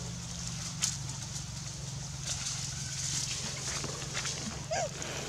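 Scattered crackles and clicks of dry leaves as long-tailed macaques move and groom, then near the end a short, rising-and-falling squeak from a newborn macaque.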